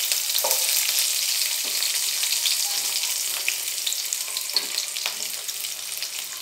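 Sliced onions sizzling in hot oil in a non-stick frying pan: a steady crackling hiss.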